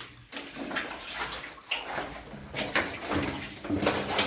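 Footsteps sloshing through shallow water, with uneven splashes.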